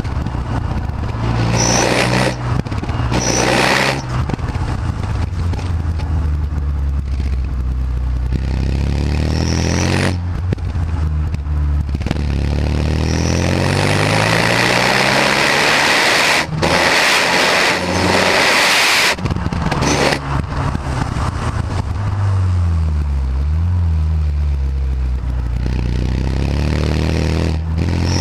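Renault Mégane R26's turbocharged 2.0-litre four-cylinder heard through its stock exhaust while driving: the revs climb and fall again and again as it pulls through the gears, with brief breaks at the gear changes and a quick dip and rise in revs a little past two-thirds through.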